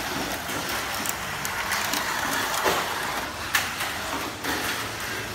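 Cyclone Magnum mini 4WD car running on a plastic track: a steady whir from its small electric motor and gears, with a few sharp clacks about two and a half and three and a half seconds in.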